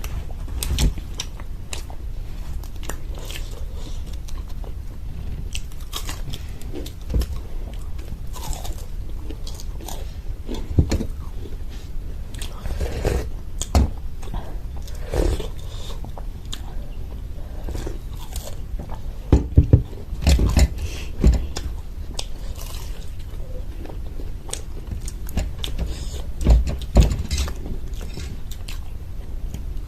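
Close-up eating: biting into and chewing crisp fried samosas, with irregular crunches and crackles and a few louder knocks, over a low steady hum.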